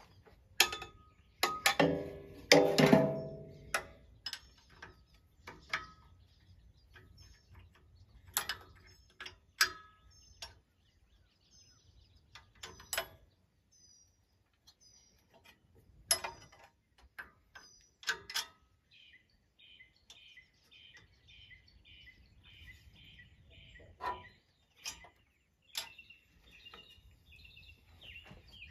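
Metal clanks and taps of hand tools and parts on a Farmall tractor's fan and generator pulleys as new belts are fitted, with a louder burst of ringing clanks about two to three seconds in and scattered knocks after. Birds chirp, and a fast repeated bird trill runs through the second half.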